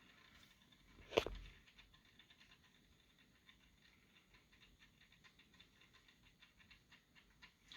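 Faint handling noise from boxed figures and packaging: a single sharp knock about a second in, then light scattered ticks and rustling.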